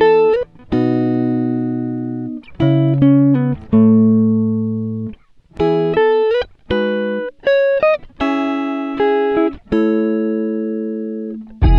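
Background music: a plucked guitar melody of single notes that start sharply and ring out, some sliding in pitch, in short phrases with brief gaps.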